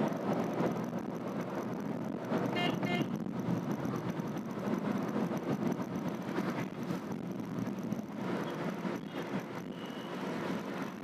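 Cabin noise inside a Renault Triber AMT moving in traffic: a steady rush of road and tyre noise with the 1.0-litre three-cylinder petrol engine running. A brief high-pitched tone comes about two and a half seconds in.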